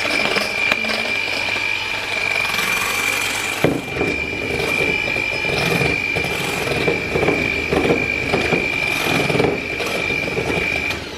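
Electric hand mixer running steadily with a high whine, its beaters churning food in a glass bowl. It switches off near the end.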